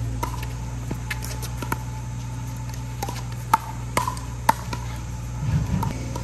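A pickleball rally: a string of sharp plastic pops as the ball is struck by paddles and bounces on the concrete court, roughly every half second to second, over a steady low hum. A brief low rumble comes near the end.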